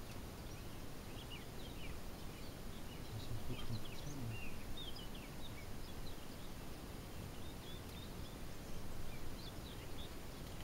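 Small birds chirping in the background, many short high notes throughout, over a steady low rumble of outdoor noise.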